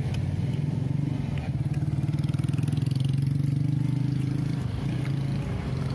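A motorcycle engine running close by, growing louder about a second in and holding steady, then dipping briefly near the end.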